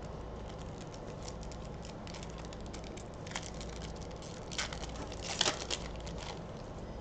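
Panini Prizm trading cards and their pack wrapper being handled: a run of light crackles and clicks, with a few louder crinkly clusters around the middle.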